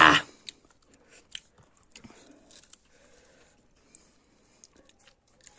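A man's short, loud cry at the very start, his reaction to a hot, sour bite, then faint crunching and chewing with scattered small clicks as he eats a raw green stalk dipped in chili paste.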